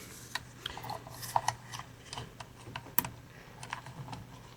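Faint, irregular small clicks and taps of a roll of 120 film and its spool being handled, with one sharper click about three seconds in.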